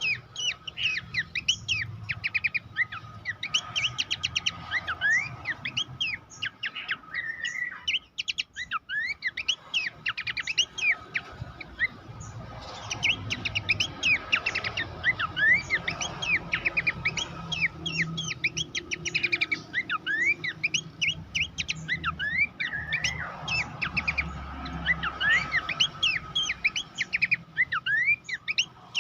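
Pelanduk semak (a babbler) singing a dense, fast run of sharp chirps and quick up-and-down whistled notes. The song thins out for a few seconds about a third of the way in, then picks up again.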